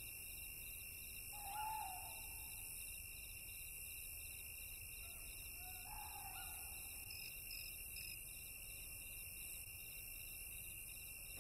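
Owl hooting faintly twice, about four seconds apart, over a steady hiss.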